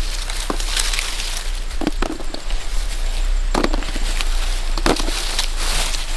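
Dry leaves and grass crackling and rustling as fallen fruit is picked up by hand from the leaf litter, with a few sharper clicks scattered through.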